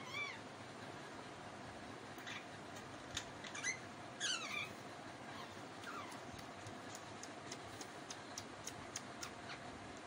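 Parakeet giving several short calls, some falling in pitch, during the first six seconds, followed by a run of faint quick ticks about three or four a second.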